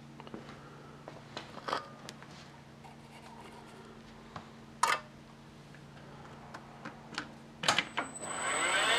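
Scattered light clicks and knocks of metal tools and parts being handled at a stopped milling machine, with a faint steady hum underneath and a sharper clack about five seconds in. Near the end the milling machine's spindle motor starts and winds up to speed.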